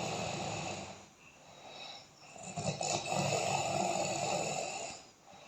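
Loud, rough snoring: one snore tails off about a second in, and after a short pause a second long snore starts about two and a half seconds in and fades near the end.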